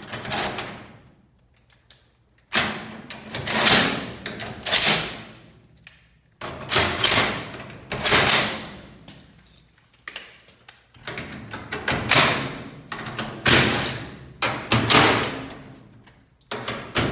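Steel garage door hardware being worked by hand as a hinge and roller are fitted into place: repeated bursts of metal scraping and clunking, each a second or two long, with short gaps between them.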